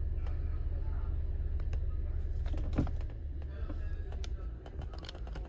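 A scatter of light clicks and taps inside a car's cabin, over a steady low hum that eases a little about three seconds in.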